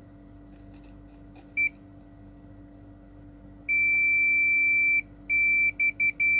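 Digital multimeter continuity beeper sounding as the probes touch board components. One short blip comes first, then a long steady high beep a little past halfway that breaks off and stutters a few times as contact is made and lost, then holds again. The continuous beep marks a shorted component.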